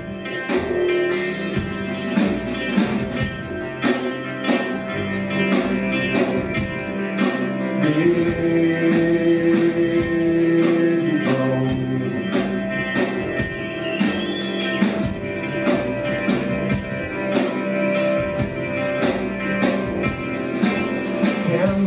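Live rock band playing an instrumental passage of the song, held pitched notes and a bass line over a steady drum beat, with no lead vocal.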